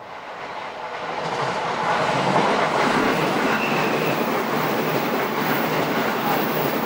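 Electric train on the JR Sobu Line passing through a curve, its wheels-on-rail running noise rising quickly over the first two seconds and then holding steady, with a brief faint high whine about three seconds in.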